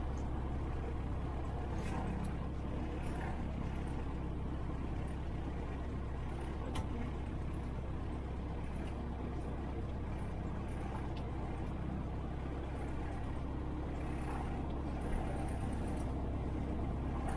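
Cessna 150's four-cylinder Continental O-200 engine idling steadily after start, a constant low drone heard from inside the cabin, with a couple of faint clicks.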